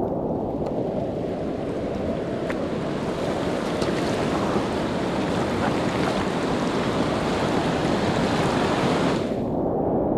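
Rushing river whitewater heard from a kayaker's helmet camera while running a rapid, a steady dense wash of noise with paddle-stroke splashing. A higher hiss of spray on top stops abruptly about nine seconds in.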